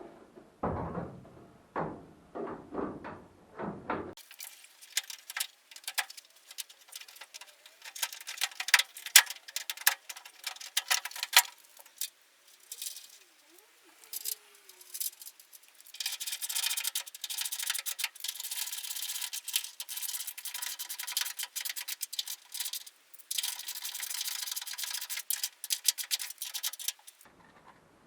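Workshop handling noise while refitting classic Mini doors: knocks and clatter of metal parts. About four seconds in the sound turns thin and tinny, becoming a run of rapid sharp clicks and then dense scraping and rattling.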